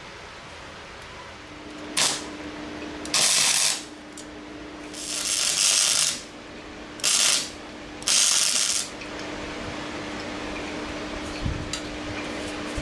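Electric arc welder tacking thin steel plate: five short bursts of crackling arc hiss, each under a second, with a steady hum between them.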